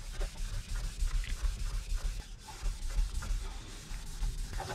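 A cloth rubbing metal polish into a plastic radio case in repeated circular scrubbing strokes, over background music.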